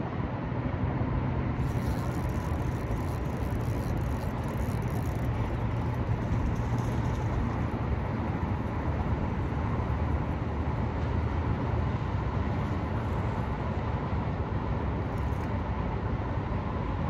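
Bass boat's electric trolling motor running with a steady low hum.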